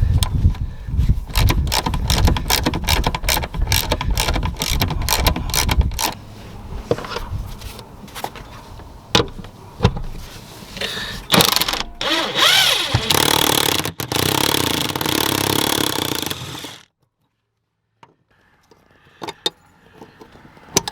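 Tools loosening the rear-seat mounting nuts of a Jeep Wrangler: a quick run of metallic clicks and knocks, then a few seconds of a steady high whir that stops abruptly.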